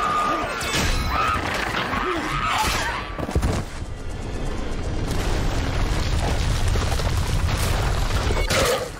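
Soundtrack of a TV drama fight scene: dramatic music over deep rumbling booms, with a sharp hit about three and a half seconds in.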